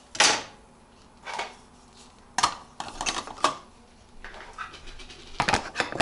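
Child's plastic cups and plates knocking and clattering against the wire racks of a Whirlpool dishwasher as they are loaded, a string of light irregular knocks.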